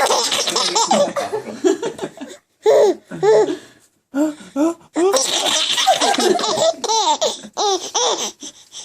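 Little girl laughing at a sneeze, in several loud, high-pitched bursts of giggling broken by short pauses.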